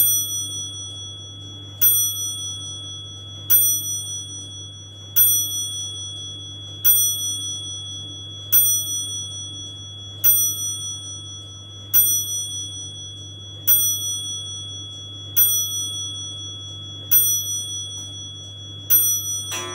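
Antique wall clock striking twelve on a bell: twelve clear, ringing strikes about one and three-quarter seconds apart, each left to ring on and fade. A steady low hum runs underneath.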